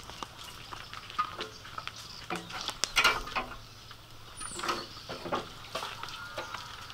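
Scattered light knocks, clicks and rustles of people handling cookware around a large wok, the loudest knocks about three seconds in; near the end, cooking oil starts pouring from a metal pot into the wok.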